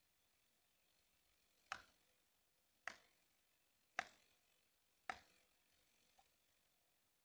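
Four sharp knocks, about a second apart, of a hand tool striking wood, then a much fainter fifth knock near the end.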